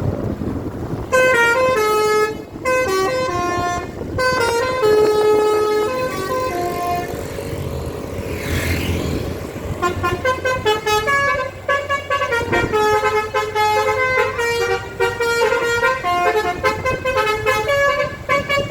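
Bus 'telolet basuri' horn, a multi-tone air horn, playing a tune of short tooting notes in two runs, the second quicker, with a brief rushing hiss between them midway.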